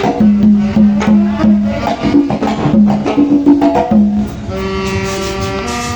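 Live band playing Latin tropical dance music: a choppy bass-and-percussion groove with woodblock-like clicks. About four and a half seconds in it gives way to held wind-instrument notes.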